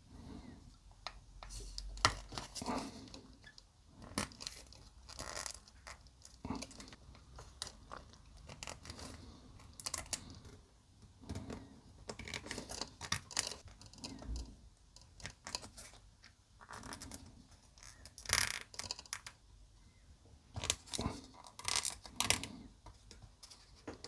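Small model parts being handled: scattered light clicks, taps and scrapes as a model figure's feet are worked into the foot hoops of a polystyrene model windsurfer board.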